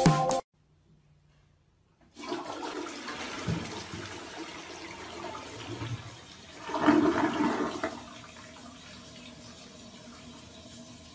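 A toilet flushing, starting about two seconds in: water rushing and swirling down the bowl, loudest around the middle, then easing to a quieter steady hiss.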